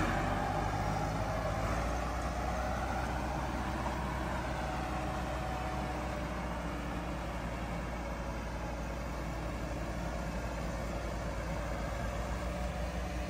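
Tractor diesel engine running steadily at an even speed.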